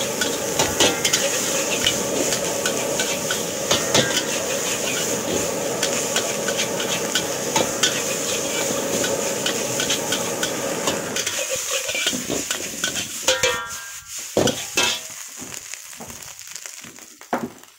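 Nasi goreng sizzling in a hot steel wok while a metal spatula stirs and scrapes it, with frequent clinks of the spatula against the wok. About twelve seconds in the frying dies down, leaving a few separate knocks and clatters.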